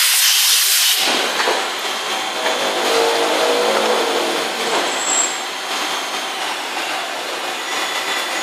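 CNC machine running, with a loud burst of hissing air in the first second, then a steady mechanical whir with faint whining tones.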